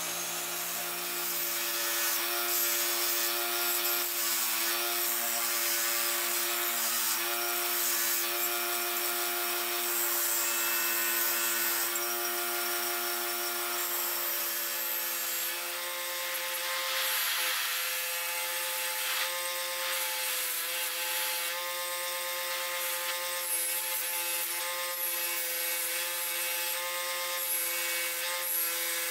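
Bench grinder spinning a wire wheel while hand-forged iron chest handles are held against it, the steel bristles scrubbing the metal clean. A steady motor hum under a scratchy hiss; the hum changes pitch about halfway through.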